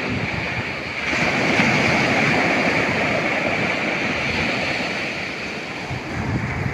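Ocean surf breaking on a beach: a steady rush of water that swells about a second in and slowly eases off, with wind buffeting the microphone.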